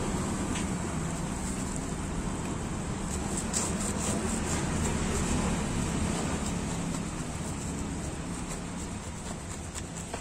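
Steady rumble of street traffic with a low hum, and a few faint crunches of a knife cutting through toasted sandwich bread.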